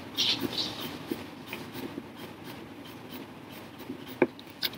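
Pencil scratching on paper in a run of quick, short hatching strokes, with a couple of sharper clicks near the end.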